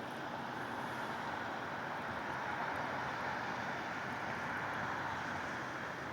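Steady background noise of distant traffic, an even rushing hiss with no distinct vehicle passing.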